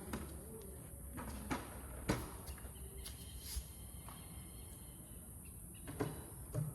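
Faint scattered knocks and light taps as an aircraft engine cowling panel is handled and set into place over the engine.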